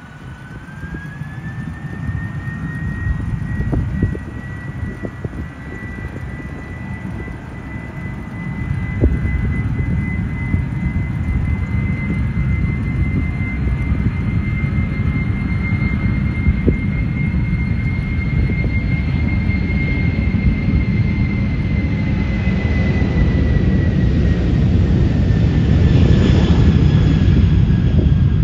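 Boeing 747-400's four General Electric CF6 turbofans at takeoff power on the runway. A high whine rises in pitch about a second in as the engines spool up, with a low rumble that grows steadily louder as the jet accelerates toward the microphone. Near the end the whine drops in pitch as the aircraft passes.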